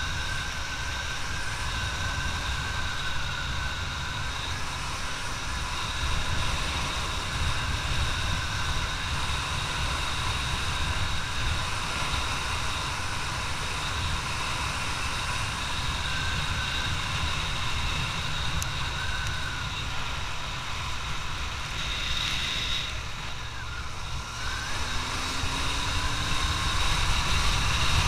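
Suzuki GSX650F motorcycle under way, its inline-four engine running steadily with heavy wind rumble on the microphone. About three-quarters of the way through, the engine note rises and it gets louder as the bike accelerates.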